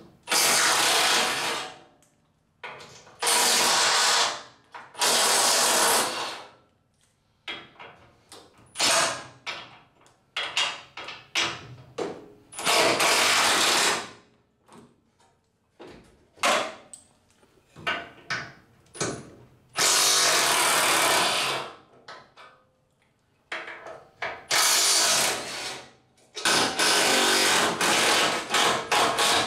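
Cordless drill run in about ten short bursts of one to two seconds each, with clicks and knocks of handling in between.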